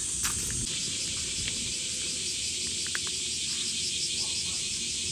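Steady high-pitched insect chorus of fine, fast pulsing, over a low rumble, with a few faint clicks.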